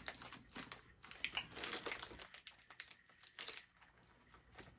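Foil chip bag crinkling and rustling as it is handled, in short irregular crackles.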